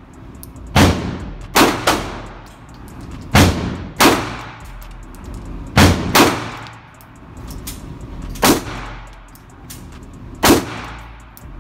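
Glock 17 9mm pistol fired eight times at an uneven pace, some shots in quick pairs, each report echoing in an indoor range.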